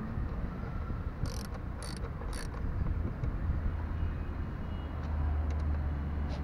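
Three short ratcheting strokes of a wrench tightening the scooter's front brake caliper bolts, about half a second apart. Under them runs a steady low rumble that grows louder about halfway through.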